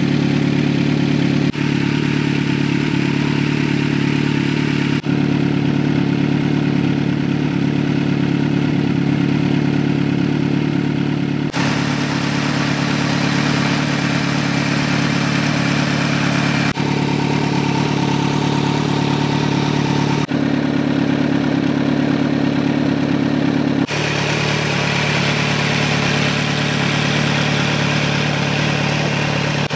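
Kawasaki Z900's inline-four engine idling steadily through a Proformance aftermarket exhaust with a stainless steel link pipe, heard up close. The sound jumps abruptly several times where takes are spliced together.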